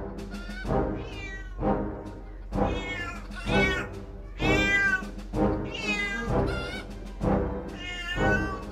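Cat meows repeated about once a second over a backing music track, with a couple of longer, drawn-out meows around the middle.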